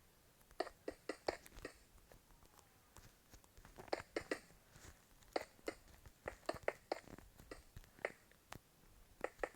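Someone chewing and crunching food close to the microphone: short, irregular crunches, often in quick clusters of two or three.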